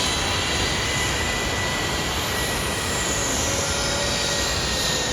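Waterfall's falling water rushing steadily as one unbroken noise.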